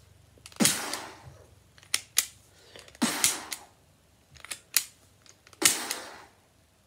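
Toy cowboy revolver firing three bangs about two and a half seconds apart, each fading over about a second, with sharp clicks from the gun between shots.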